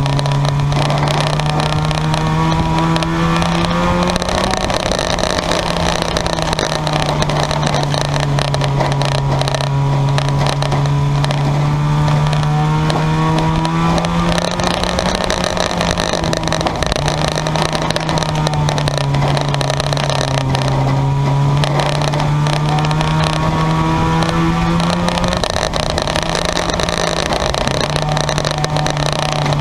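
Junkyard race car's engine running hard around the track. Its pitch climbs for several seconds and then drops back, about three times.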